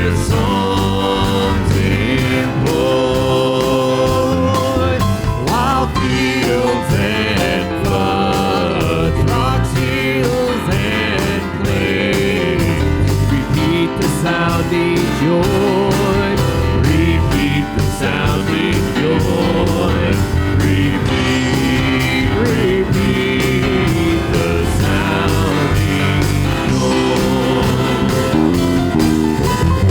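Worship band playing a country-style song with guitar and a steady drum beat.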